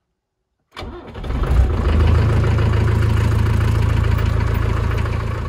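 Range Rover Classic engine started with the key, heard from inside the cabin: a short crank, then it catches about a second and a half in and settles into a steady idle.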